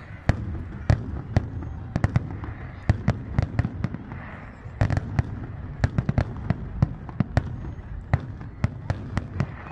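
Aerial fireworks bursting: many sharp bangs at an irregular pace, several a second at times and thickest in the second half, over a continuous low rumble.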